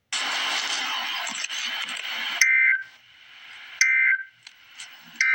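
Emergency Alert System end-of-message signal: a burst of hiss, then three short two-tone digital data bursts (the SAME "NNNN" end-of-message code) about a second and a half apart, each a harsh warbling beep.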